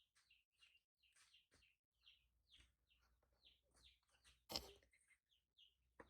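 A baby monkey making a run of faint, short, high chirping squeaks, about two a second. A single sharp knock sounds about four and a half seconds in.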